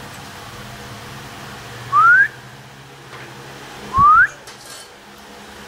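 A person whistling twice, two short rising whistles about two seconds apart.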